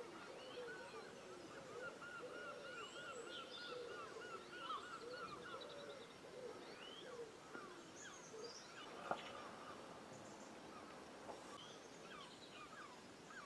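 Birds calling outdoors, a mix of short rising-and-falling calls and chirps, some in quick repeated series. A single sharp click about nine seconds in.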